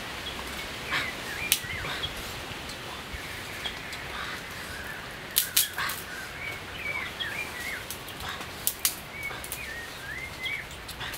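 Short, wavering high-pitched animal calls, repeated every second or so, with a few sharp clicks about one and a half, five and a half and nine seconds in.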